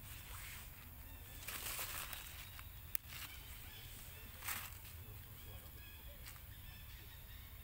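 Faint outdoor ambience of distant bird calls, with two short bursts of rustling noise, the first about one and a half seconds in and the second about four and a half seconds in, and a sharp click about three seconds in.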